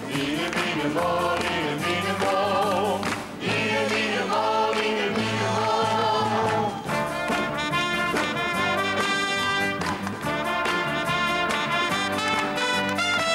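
Orchestral music with brass, played by a studio orchestra, with a group of singers holding long notes over it; the second half is more purely instrumental.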